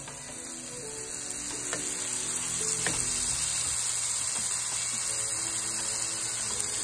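Shrimp frying in hot oil: a steady sizzle that grows louder over the first two seconds or so and then holds.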